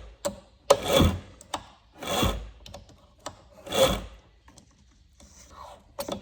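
A chainsaw's recoil starter rope pulled three times in a row, each pull a short rasping whirr, and the engine does not catch.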